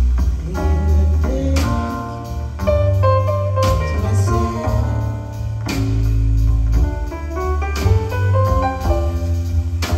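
Live jazz quartet playing an instrumental passage: piano over double bass and drums.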